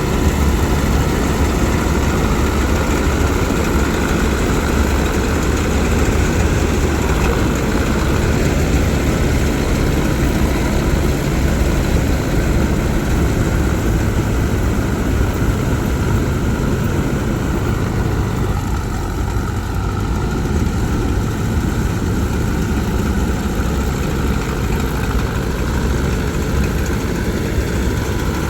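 Heavy diesel engine of farm machinery running steadily, with a slight easing in level about two-thirds of the way through.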